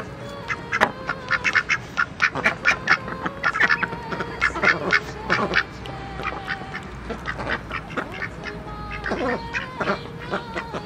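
Ducks pecking corn kernels off a wooden table: a quick, irregular run of sharp clacks of bills on the boards, with a few quacks in between.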